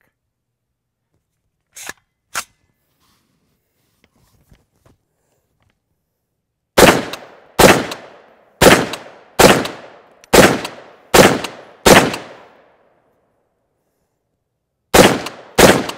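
CMMG Anvil .458 SOCOM semi-automatic rifle firing 350-grain Black Butterfly rounds. Seven shots come in quick succession, a little under a second apart, each with an echoing tail. After a pause, two more shots come near the end. Two light clicks come a few seconds before the first shot.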